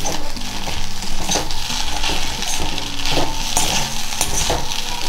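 A metal spatula stirring and scraping poha in an iron kadhai over the flame, with repeated short scrapes against the pan over a steady sizzle.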